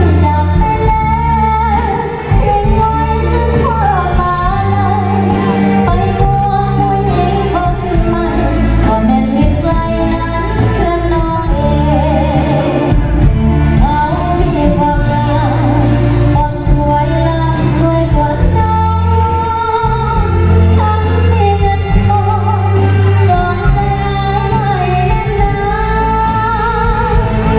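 A woman singing a pop song over an amplified band with keyboard, electric guitar and a heavy bass line, played through a PA system.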